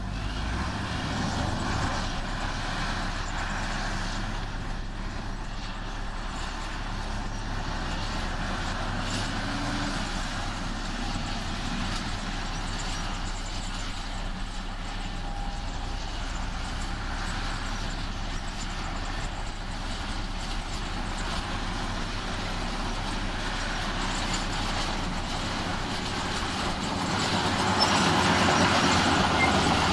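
Diesel engine of heavy earthmoving machinery running steadily, growing louder about four seconds before the end.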